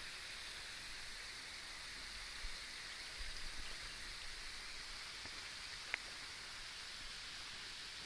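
Steady outdoor hiss, with a few low rumbles about three seconds in and a single sharp tick near the end.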